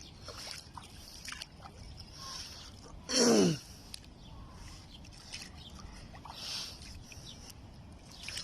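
Small waves softly lapping and sloshing at the water's edge. About three seconds in there is one short voice sound falling in pitch, like an 'ohh'.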